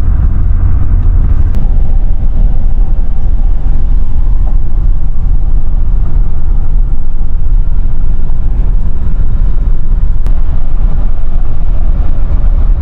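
Pickup truck on the move, heard from inside the cab: a steady, loud, low rumble of road and engine noise.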